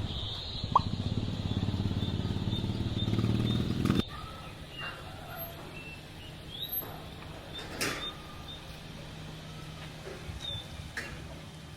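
A motor vehicle engine running with a steady low rumble, which cuts off abruptly about four seconds in. Quieter outdoor ambience follows, with faint, evenly repeated chirps and a few light clicks.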